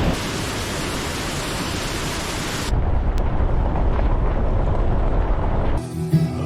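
Steady rushing roar of a waterfall. About two and a half seconds in it switches abruptly to a duller, deeper rush without the high hiss. Music starts near the end.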